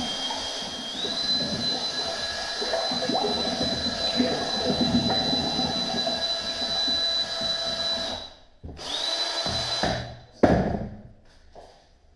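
Cordless drill running a paddle mixer through a bucket of thick ceramic casting slip, its motor whining steadily and speeding up about a second in, with the slurry churning. The slip is being re-mixed before its specific gravity is measured. The drill stops about eight seconds in, gives one brief second burst, and then there is a sharp knock.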